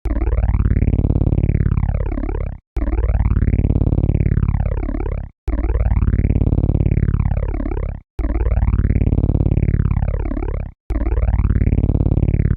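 Synthesized helicopter sound: a fast rotor-like pulsing run through a filter that sweeps up and back down, played as a loop that repeats about every 2.7 seconds with a brief cut to silence between repeats.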